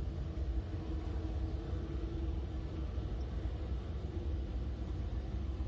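Boeing 747-8F's four GEnx turbofan engines running at low power as the freighter rolls along the runway: a steady low rumble with a steady hum above it.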